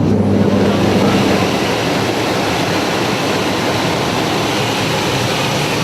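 Steady, loud drone of a small skydiving jump plane's engine and propeller heard inside the cabin in flight, with the rush of air over it.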